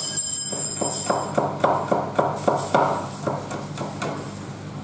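Repeated sharp knocks of food preparation, a blade or pestle striking in a steady rhythm of about three to four strokes a second, fading out after about three seconds, with a brief high metallic ringing in the first second.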